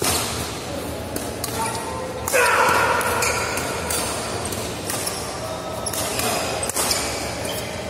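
Badminton doubles rally: racket strings striking the shuttlecock in a run of sharp, quick smacks. A loud voice calls out about two seconds in.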